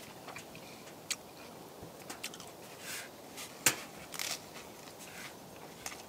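Quiet interior with a few faint, scattered clicks and crackles; the sharpest click comes a little past halfway.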